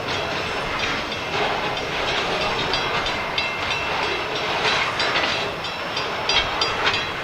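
Freight train cars rolling past: a steady rolling noise, with irregular metallic clicks and brief high ringing from the wheels on the rail.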